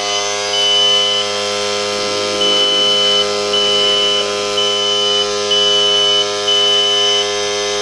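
Electric fan motor running with a loud, steady electrical buzz, and a high beep that sounds in repeated pulses of under a second.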